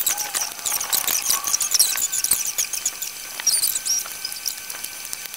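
Knife cutting set gelatin and tapping on a plastic cutting board in scattered short clicks, under a constant chatter of quick, high, squeaky chirps that bend in pitch.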